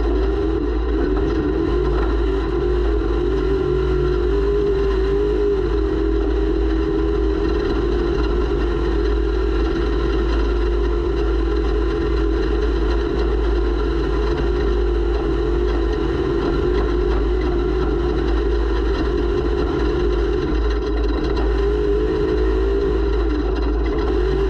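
Off-road race vehicle's engine running hard at a fairly steady pitch, picked up by an onboard camera, under a heavy low rumble. The engine note wavers slightly and lifts briefly a few seconds in and again near the end.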